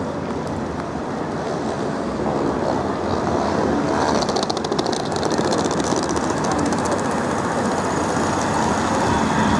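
Midland Metro CAF Urbos 3 tram running along street track towards the listener and passing close by, its running noise growing louder. About four seconds in, a rapid high-pitched rattling tick lasts for two or three seconds.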